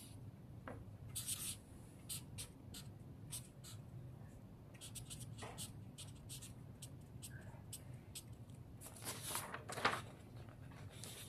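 Marker pen drawing on a sheet of paper: many short scratchy strokes in quick succession, then a louder rustle of the paper near the end as it is lifted.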